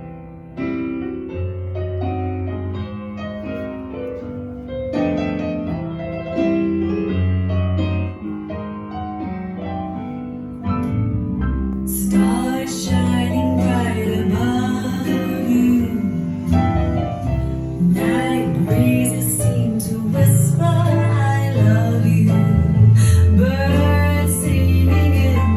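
Recorded music played back through a McIntosh MA12000 amplifier and Wharfedale Elysian 4 speakers. It opens with piano-like keyboard notes over a deep bass, and about twelve seconds in a fuller arrangement with a singing voice and crisp highs comes in.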